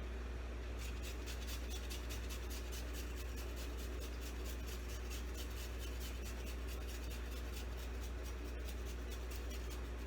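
Fresh ginger being grated over a dish: a quick, continuous run of short scratching strokes on the grater starting about a second in, over a steady low hum.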